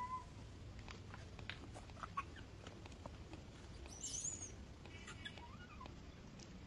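A few short, faint calls from a baby long-tailed macaque: a brief squeak at the start, a thin high squeal about four seconds in, and a short rising-and-falling coo near the end, with faint scattered ticks.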